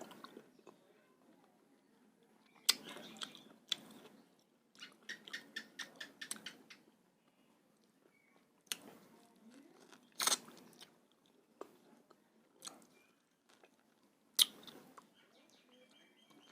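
A person chewing and eating, with scattered sharp mouth clicks and a quick run of them about five seconds in.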